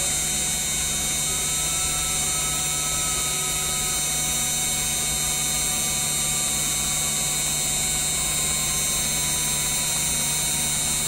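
Genmitsu 3018-PROVer V2 desktop CNC mill running: a steady high-pitched spindle whine over a low hum, with fainter tones that step up and down in pitch every second or so as the machine moves.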